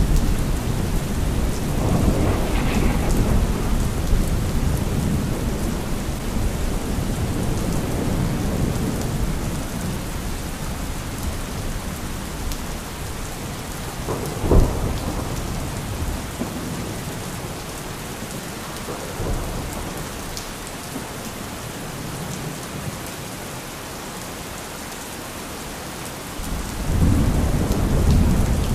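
Thunderstorm: steady rain falling, with rolling thunder. The thunder rumbles early on, a sharp clap comes about halfway through, and a fresh rumble swells near the end.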